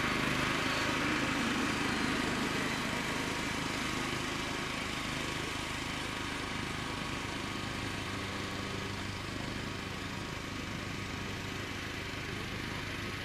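Electric ducted fan of a radio-controlled model jet, a 90 mm Wemotec fan, whining and rushing in flight: a steady hiss over a constant hum, easing slightly after the first few seconds.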